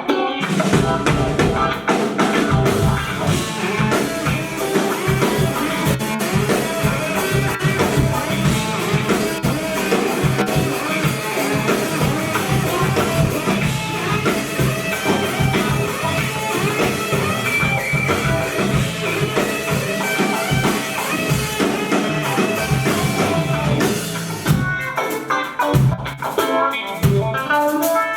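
Rock band playing live, with drum kit and electric guitars. The drums drop back briefly near the end before the full band comes back in.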